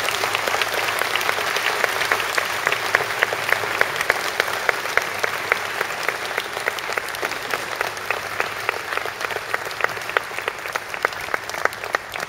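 Audience applauding, the clapping thinning out gradually until single hand claps stand out near the end.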